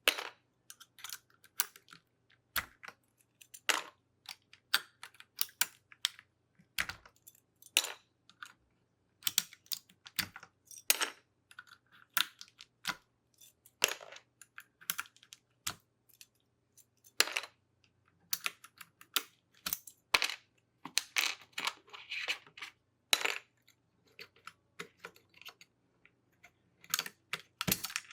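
Keycaps being pulled off a mechanical keyboard: irregular sharp plastic clicks and clacks, some single and some in quick clusters.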